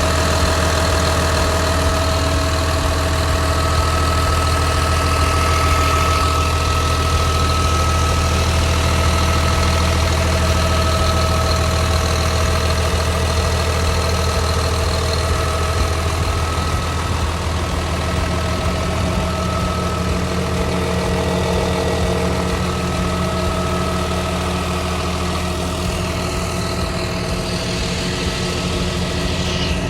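Volvo EC300DNL tracked excavator's diesel engine running steadily, a low hum with steady higher tones over it.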